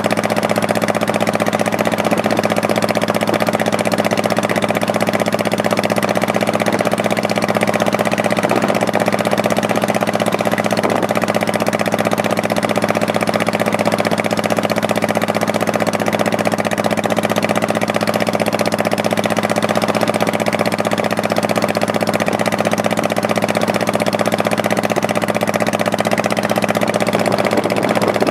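Honda Shadow Spirit 1100's V-twin engine running steadily at an even, unchanging pitch.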